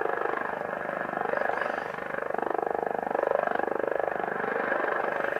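Unidentified wideband pulse-type signal on shortwave, about 22 kHz wide, heard through a Kenwood R-1000 receiver as a rapid pulsing buzz with whistling tones that slide up and down in pitch. The owner has ruled out electrical noise from inside his house.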